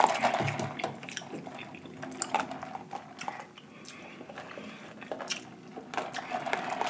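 Faint sipping of lemonade through a straw from a plastic cup, with scattered soft mouth clicks.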